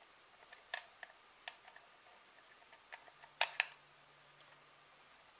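Small, sharp clicks and taps of a screw being handled and set into the hard plastic back cover of a wave-maker controller housing, with a pair of louder clacks about three and a half seconds in.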